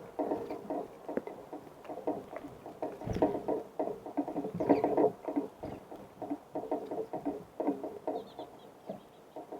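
Small birds pecking at seed on a bird feeder: repeated clusters of rapid light taps, with a few faint, short high chirps about eight seconds in.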